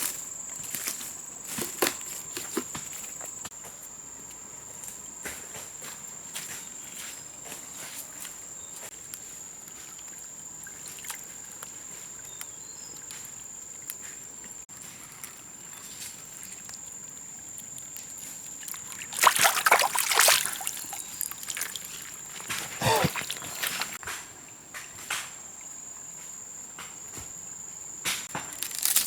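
A steady high-pitched insect drone from the rainforest, with scattered clicks and knocks of handling. About two-thirds of the way through there is a louder burst of noise lasting a couple of seconds.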